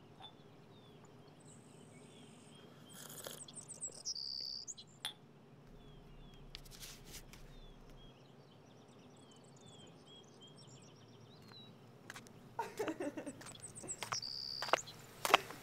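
Quiet outdoor ambience: small birds chirping and twittering now and then over a faint steady hum. A louder, busier stretch of sound comes near the end.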